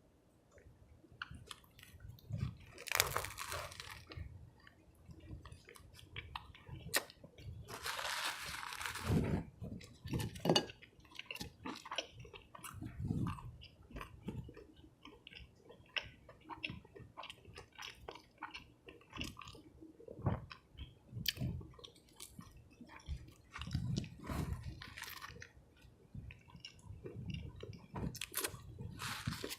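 Close-miked eating of a cheese fish sub and fries: repeated bites, chewing and crunching with wet mouth clicks, and a few longer, louder crunching bites about three and eight seconds in.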